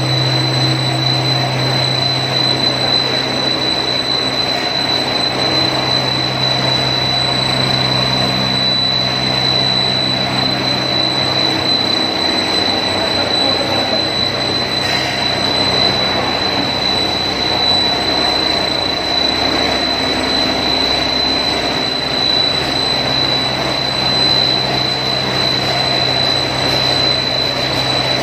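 Snack pellet extrusion production line running: a steady factory machinery noise with a constant high-pitched whine and a low hum.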